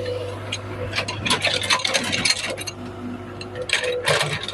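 Excavator at work: irregular clinking and scraping rattles, heaviest in a burst about a second in and again near the end, over a steady low engine hum.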